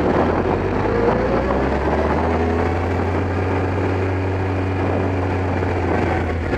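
Kawasaki ZX-12R's inline-four engine running steadily, with a pitch that climbs a little about a second in.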